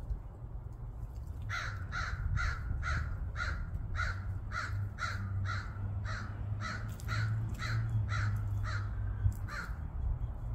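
A crow cawing over and over in a long, even run of harsh caws, about two or three a second, starting about a second and a half in and stopping near the end.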